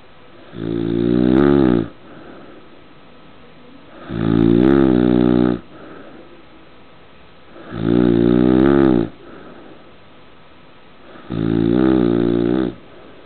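Loud, pitched snoring: four long snores, each well over a second, coming about every three and a half seconds.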